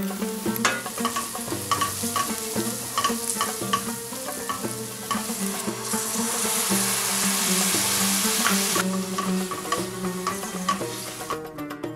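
Onions, spices and grated tomato frying in a stainless steel pan, sizzling as a wooden spoon stirs them. The sizzle grows louder for about three seconds midway and cuts off near the end, over background music with plucked string notes.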